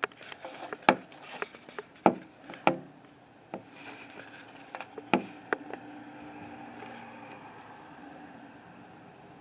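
Handling noise on a handheld camera: irregular clicks, knocks and rubbing over the first six seconds, then a faint steady background noise.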